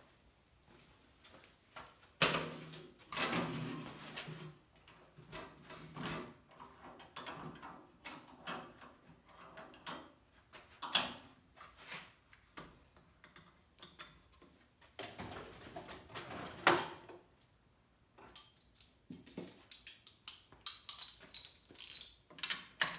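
Tools and small metal parts being handled on a workbench: scattered clicks, knocks and clatters, with a longer rustling scrape about two seconds in, as a spark plug socket is readied for a weed eater's spark plug change.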